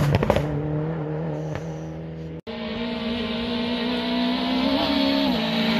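Rally car's engine pulling hard as it passes on gravel and moves away, then after an abrupt cut a second rally car's engine, a Peugeot 208, approaching and growing louder, with a rise and drop in pitch near the end as it changes gear.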